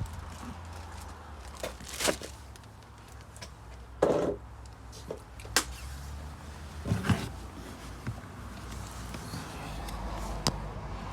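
A handful of separate short knocks and clicks, like tools or parts being handled during work on the engine, over a low steady hum.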